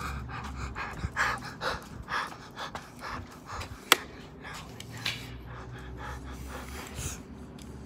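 A pug panting, about three quick breaths a second, over a low steady rumble, with one sharp click about four seconds in.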